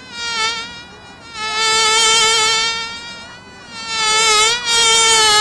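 An animal's long, buzzy call held at a nearly steady high pitch with a slight waver, swelling louder and fading back a few times.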